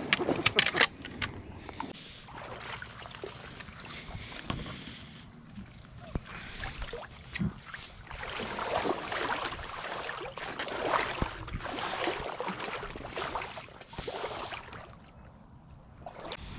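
Water splashing and sloshing with reeds rustling as a shot duck is reached for and pulled out of the water by hand, with a few sharp knocks near the start.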